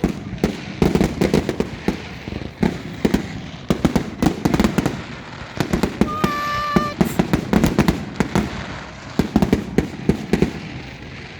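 Fireworks display: a rapid, irregular run of aerial shell bangs and crackling reports, with rumbling between them. About six seconds in, a short steady horn-like tone sounds for under a second.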